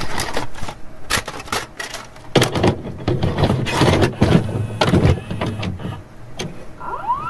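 Electronic glitch and static sound effects of a video intro: crackling noise bursts and sharp clicks, joined by a low pulsing beat about two seconds in, with a rising sweep near the end.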